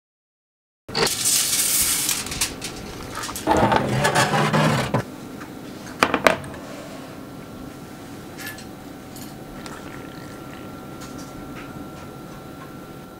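Metal kitchen utensils scraping and clinking against a pan in bursts, with two sharp clinks about six seconds in, then a quieter steady hum with a few faint ticks.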